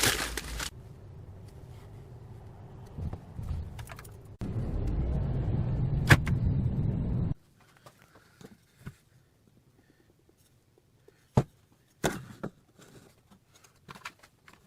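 Workshop sounds in short segments: a steady machine-like noise, heaviest in the low end, that stops abruptly about seven seconds in, then scattered clicks and knocks.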